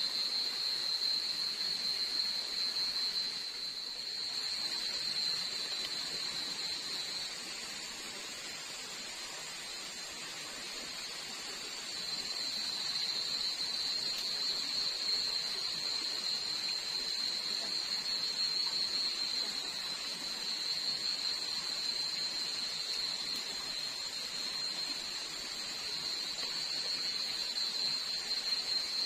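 Night insect chorus in tropical forest: a continuous shrill, high-pitched trill over a steady hiss, dipping slightly in level about a third of the way in.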